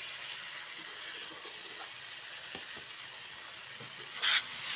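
Diced brinjal frying in oil in a steel kadai, a steady sizzle after a mustard-and-chilli paste has been added. About four seconds in there is one brief, loud scrape as the spatula goes into the pan.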